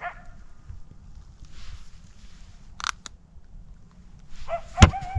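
A pack of coyotes calling: a faint call fades at the start, and one long howl rises near the end. A few sharp clicks sit on top, the loudest just before the howl peaks.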